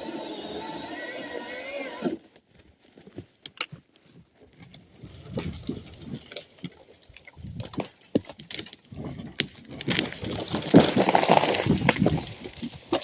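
Milwaukee battery-powered chainsaw running steadily for about two seconds, then stopping abruptly. Sharp cracks and snaps of wood follow as the dead red oak gives way, then a long crash of breaking wood and branches as the tree falls and breaks apart, loudest near the end.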